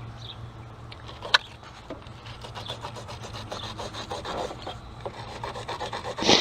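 Wet rag scrubbing crusty blue corrosion off a car battery terminal, a fast run of rubbing and scraping strokes. There is a sharp click about a second in and a louder knock at the end.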